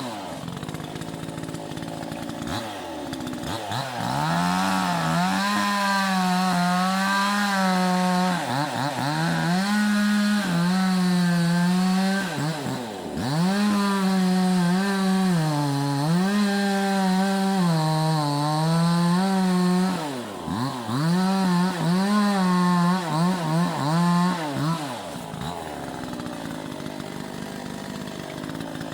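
Vevor chainsaw running at high revs and cutting into a dead tree. Its engine pitch sags again and again as the chain bogs down in the wood, then picks back up. The saw drops off about 25 seconds in.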